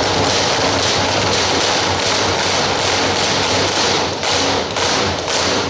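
A group drumming with drumsticks on plastic stacking chairs: a dense, rapid clatter that breaks into a few separate unison strokes from about four seconds in, as the piece ends.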